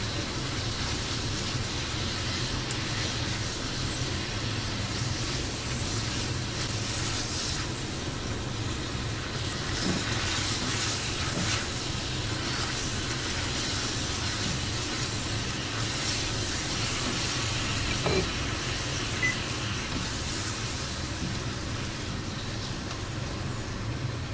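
Soy-sauce braising liquid boiling hard in a frying pan around pork belly, a steady sizzle and bubbling as the sauce reduces to a glaze over high heat, with a few light knocks of chopsticks turning the meat.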